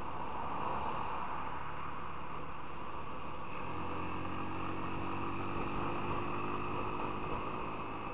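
Motorcycle riding at a steady cruising speed: the engine runs with wind and road noise. About three and a half seconds in, a steadier low engine hum with several tones comes in.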